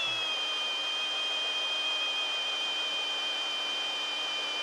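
RIDGID cordless hammer drill boring an auger bit into a log, its motor whine dropping in pitch as the bit bites into the wood, then holding steady under heavy load.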